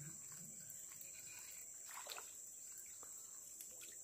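Faint, steady high-pitched chirring of insects, with a soft brief rustle about two seconds in.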